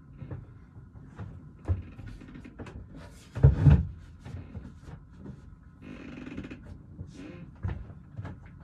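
Wooden shelf pieces and clamps being handled during a dry fit, giving scattered knocks and clunks with a loud double thump about three and a half seconds in and a short scraping sound around six seconds, over a faint steady hum.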